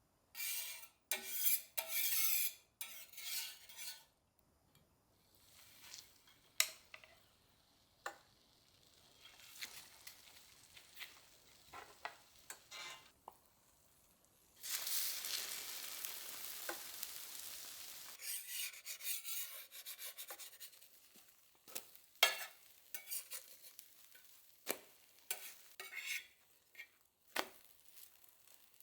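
Cooking sounds: a utensil stirring and scraping in a pan, with scattered clinks of cutlery and dishes. Near the middle comes a steady hiss lasting about three seconds.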